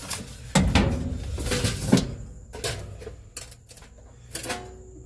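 Clanks, knocks and rattles of sheet metal as a partly dismantled front-load dryer is handled, the loudest knock about half a second in and lighter clicks after.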